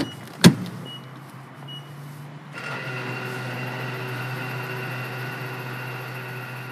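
Channel-intro sound effect: a sharp hit about half a second in, then a steady electronic hum of several held tones that swells in about two and a half seconds in and fades near the end.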